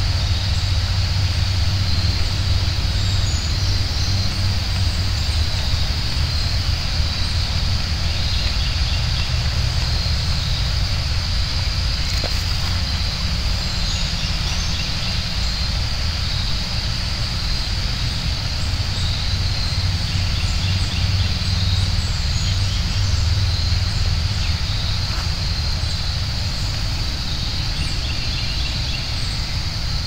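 Open-field outdoor ambience: a steady low rumble of wind buffeting the microphone, a constant high-pitched drone, and scattered faint bird chirps.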